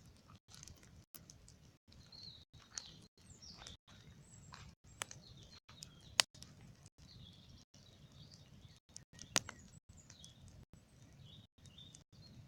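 Large bonfire burning and crackling, with scattered sharp pops, the loudest about six seconds in and again near nine and a half seconds. Birds chirp in the background.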